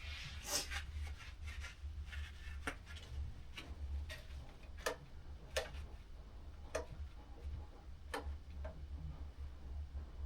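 Scattered light clicks and taps, about eight at irregular intervals, over a faint low hum. They come from handling the miter saw and the wood, with the saw's motor not running.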